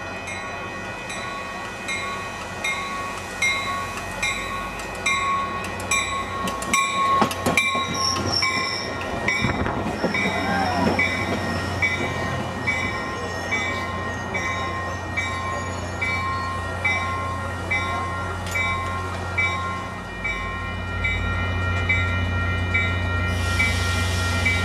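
Coaster commuter train pulling into a station, its wheels clicking over the rails with a brief high brake squeal, while a railroad crossing bell dings steadily. A hiss of air sounds near the end as the train stops.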